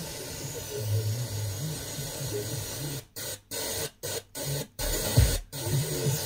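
FM radio hiss from a weak, noisy signal on a hi-fi tuner, with faint programme audio buried under it. About halfway through the sound cuts out six times in quick succession as the tuner is stepped up the band in small frequency steps, and there is a single low thump near the end.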